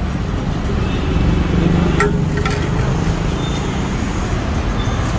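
Steady road-traffic noise, with a single sharp click about two seconds in.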